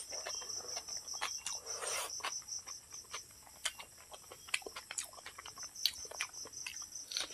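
Close-up hand-eating sounds: wet mouth clicks, smacking and chewing of rice with dal, with fingers squishing through the rice now and then. Behind it, a steady, high, pulsing chirr of insects such as crickets.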